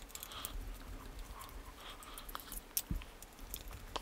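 Small screwdriver backing out the case screws of a Savox 1258TG RC servo: faint scattered clicks and scrapes of metal on screw and plastic, with a sharper click and a soft thump near three seconds in.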